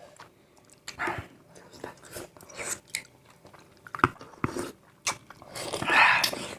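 A person chewing and biting into spicy Indonesian pickled fruit (asinan buah) close to the microphone, making irregular wet clicks and crunches. A longer, louder noisy sound comes near the end.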